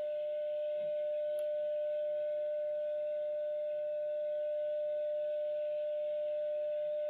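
Grundig 2147 tube radio's loudspeaker sounding a steady test tone, the modulation of the received alignment signal, over an even hiss while the antenna circuit is tuned for peak during AM RF alignment.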